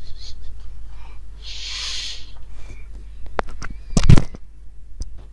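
Low electrical hum on the desk microphone, with a short breathy hiss about a second and a half in, then a few sharp clicks and a louder knock about four seconds in.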